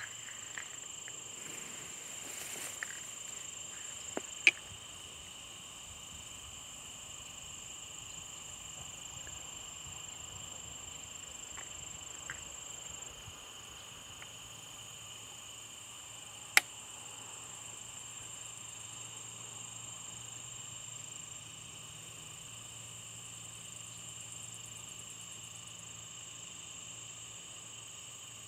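Steady evening chorus of crickets and other insects chirring in two high-pitched bands. Two sharp clicks stand out over it, one about four and a half seconds in and another about sixteen seconds in.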